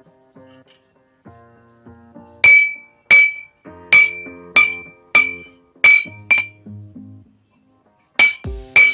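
Hand hammer striking a hot leaf-spring steel parang blade on a round iron anvil block. There are about nine blows, each with a short bright ring, starting a couple of seconds in and coming roughly half a second to a second apart, with a brief pause before the last two. Background music plays underneath.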